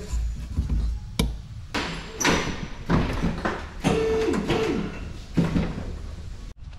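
Workshop handling noises: a sharp click about a second in, then irregular knocks, scrapes and short squeaks of metal tools and parts being worked.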